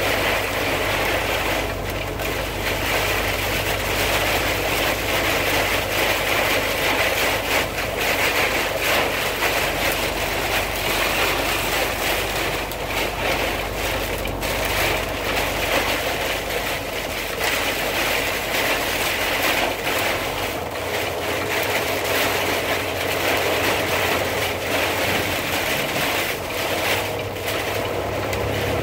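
Steady noise inside a car driving on a highway, with a low engine drone under an even rushing of road and air.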